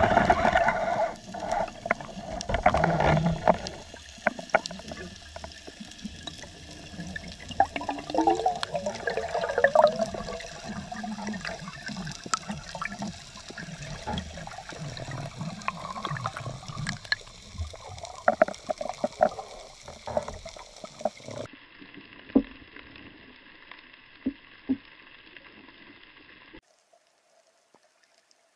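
Underwater sound from an action camera held by a spearfishing diver: rushing water and bubbling, with scattered clicks and knocks. It drops to near silence near the end.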